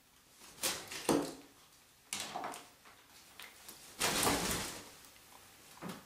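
A wet African grey parrot flapping her wings and shaking her bathwater-soaked feathers, in four short rustling bursts, the longest about four seconds in.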